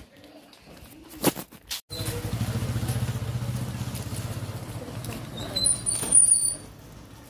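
About two seconds in, a motorcycle's small engine comes in with a steady, pulsing low rumble as it rides past close by, then fades near the end. A few high, thin squeaks sound over it shortly before it fades.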